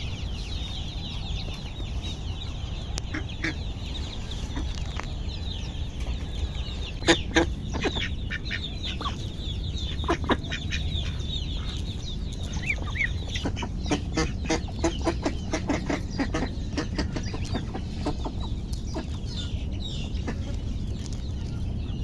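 A flock of chickens clucking, over a dense chorus of high peeping that thins out about halfway through, with short sharp calls and clicks in the second half.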